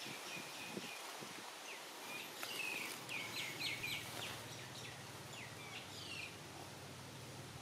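Small birds chirping: a quick run of short, high, downward-sliding chirps, most of them between about one and a half and four seconds in and a few more later, over a steady outdoor background hiss.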